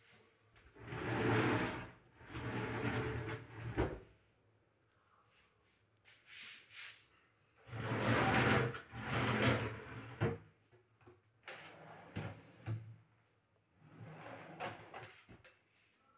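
Drawers of a laminated wooden cupboard sliding out and back in on their runners, each closing with a knock. It happens twice, then once more, fainter, near the end.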